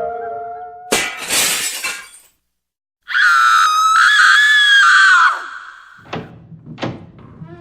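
A string of horror sound effects: a sustained howl fades out, then glass shatters in a short crash about a second in. After a brief silence comes a loud, high-pitched scream of about two seconds, followed by a few sharp knocks near the end.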